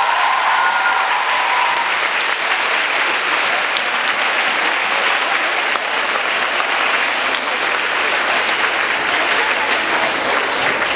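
A large audience clapping steadily, with the last held note of a group of singers dying away in the first two seconds.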